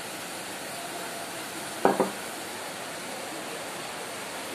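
Two sharp knocks in quick succession about two seconds in, a glass spice bowl knocking against the cooking pot as its ground spices are emptied onto raw beef liver, over a steady background hiss.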